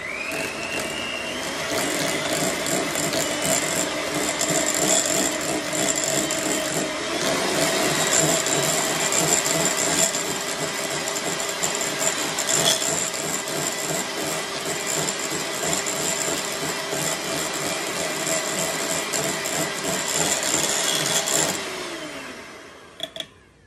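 Electric hand mixer beating cream cheese and butter in a glass bowl. The motor whines up as it starts, runs steadily with constant clicking from the beaters in the bowl, and winds down about 22 seconds in.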